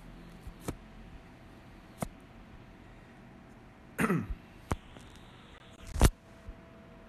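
A man clears his throat with a falling, gravelly sound about four seconds in, then gives one short loud cough about six seconds in. Several light clicks and knocks come in between.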